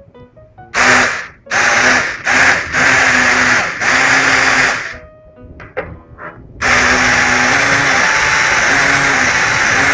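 Four small electric motors of a home-built quadcopter spinning without propellers: a high whirring whine that starts and stops in about five short bursts, then runs steadily near the end, its pitch wavering with the throttle.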